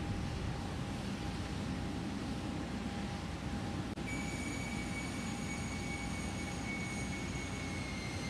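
Steady rushing noise from the rocket launch pad during cryogenic propellant loading, with a faint steady hum. After a brief dropout about four seconds in, a steady high whistle joins.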